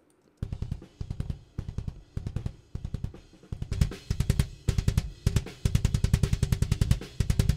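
Soloed kick drum tracks from a metalcore multitrack recording played back. Fast, tightly played kick runs with a few short breaks, starting about half a second in, each hit a sharp beater click over a low thump.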